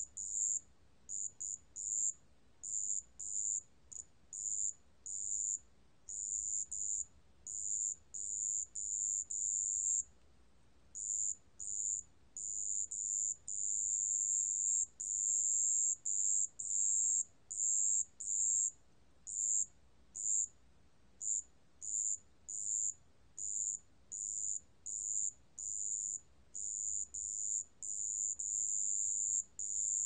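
Wetland bell cricket (습지방울벌레) singing at 27 °C: a very high-pitched, thin trill in bursts of uneven length, short chirps mixed with longer trills of two or three seconds.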